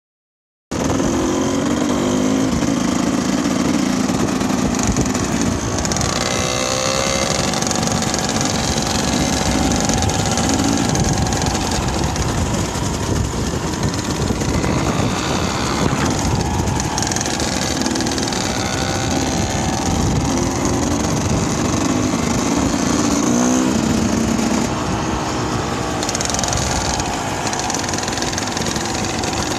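Small dirt bike engine running, its pitch rising and falling with the throttle. The sound cuts in abruptly less than a second in.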